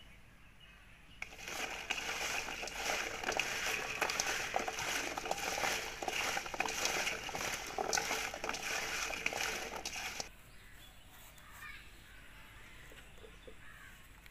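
Raw potato cubes tossed and rubbed by hand in a stainless steel bowl to coat them with turmeric and salt: a dense clattering scrape of the pieces against the metal that starts about a second in and stops about ten seconds in.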